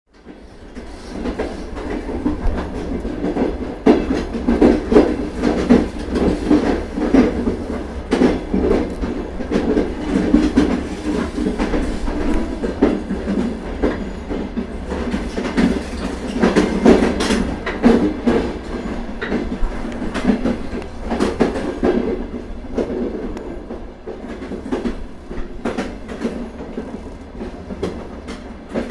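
Old Soviet train on the move, its wagon wheels clattering over the rail joints with a steady rumble and irregular knocks and rattles. The sound fades in over the first second or so.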